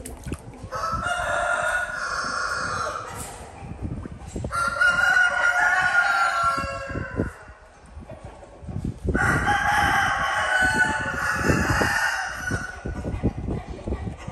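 A rooster crowing three times, each crow a long call of about three seconds, with dull low knocks underneath.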